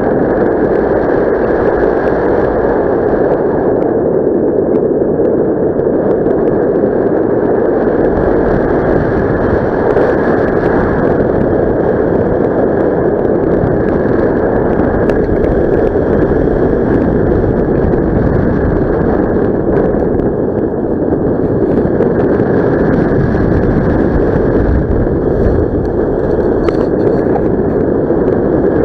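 Loud, steady wind noise rushing over the microphone from the airflow of a paraglider in flight.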